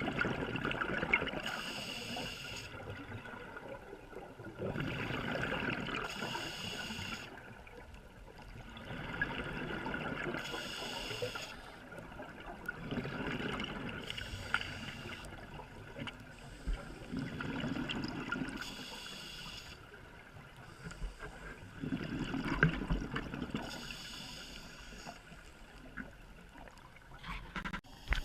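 Scuba diver breathing through a regulator, a breath cycle about every four seconds, each with a hiss and a rush of exhaled bubbles.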